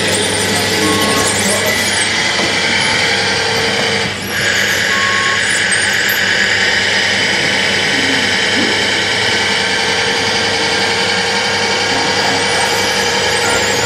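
Electric motors and gearboxes of radio-controlled construction models, a road roller and tracked bulldozers, whining and grinding steadily as they work loose sand, with a brief dip about four seconds in.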